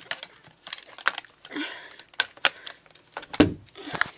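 A custom rail with a red dot sight being fitted back onto a Crosman Pulse R76 (AK74u) airsoft gun: a run of sharp clicks and rattles with a brief scraping, and a heavier knock about three and a half seconds in.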